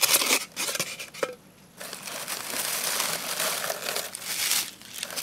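Hands rummaging through shredded paper packing in a cardboard box, a crinkling rustle. There are sharp bursts at first, a short pause about a second and a half in, then steady rustling.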